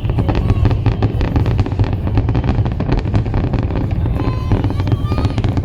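Fireworks display going off: a dense, continuous crackle of many small bursts over a steady low rumble.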